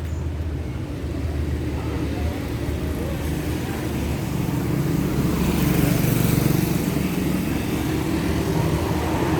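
Car driving on a road: steady engine and road noise that grows slightly louder about halfway through.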